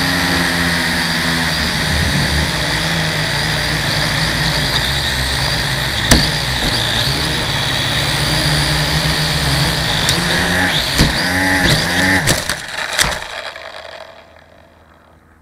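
Small battery-powered RC aircraft's electric motors and propellers whirring with a steady whine, heard from on board. Several knocks come near the end as it comes down into dry leaves, and the motors stop.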